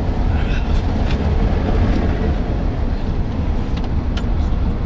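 Road noise inside a moving vehicle: a steady low rumble of tyres and engine, with a few faint clicks.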